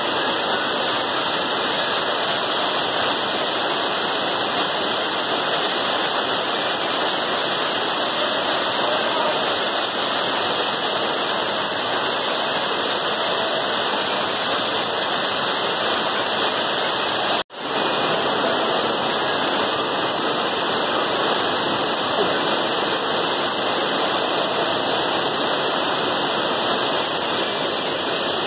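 Waterfall pouring: a steady rush of falling water. It cuts out for an instant about two-thirds of the way through, then carries on unchanged.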